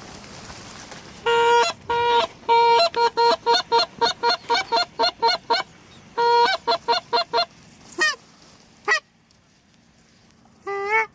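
Goose honking: after a second or so of hiss, a fast run of short honks and clucks, about three a second, breaks briefly and then thins to a few single honks.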